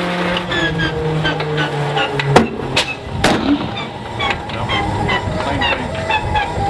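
Stinson L-1's Lycoming R-680 nine-cylinder radial engine running, dropping in speed twice, then quitting with a loud bang about two and a half seconds in, followed by two sharper pops. The engine will not keep running.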